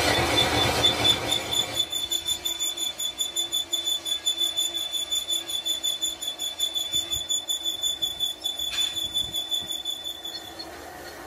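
Metal lathe turning a steel truck rim plate. The cutting tool gives a steady high-pitched squeal against the spinning steel, pulsing several times a second. A rougher cutting noise under it drops away about two seconds in, and the squeal stops near the end.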